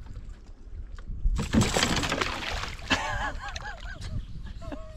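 A fish splashing and thrashing at the water's surface beside a canoe, a loud burst of splashing starting about a second and a half in.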